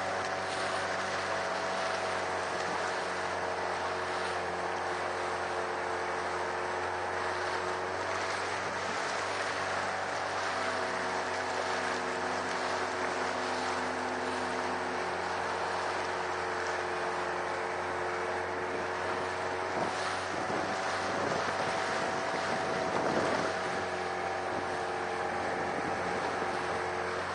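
Motorboat engine running steadily under way, a stack of even hum lines, with wind on the microphone. The engine note wavers and swells briefly toward the end.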